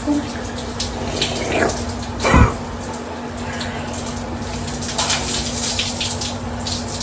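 Handheld shower running steadily, its spray falling on hair and skin, with a brief thud about two and a half seconds in.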